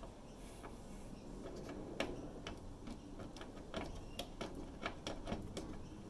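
Light, irregular plastic clicks and taps of a wiring-harness plug being handled and pushed onto a washing machine's control board, the sharpest click about two seconds in.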